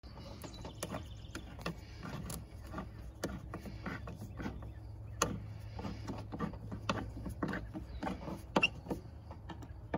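Flat-blade screwdriver tightening a worm-drive hose clamp on the rubber intake duct at the mass airflow sensor: small irregular clicks and scrapes as the clamp screw turns, over a steady low hum.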